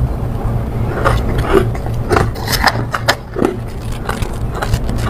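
Crushed ice crunching between the teeth as a mouthful is bitten and chewed: a quick run of sharp, irregular crunches that thins out near the end, over a steady low hum.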